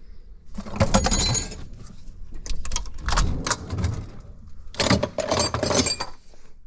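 Metal hand tools clattering and clinking against metal in three rattling bursts, as tools are handled and set down.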